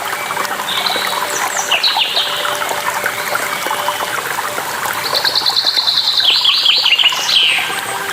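Small birds singing over running water: bursts of rapid repeated chirps and quick falling notes come near the start and again in the second half, over a steady trickle and splash of water.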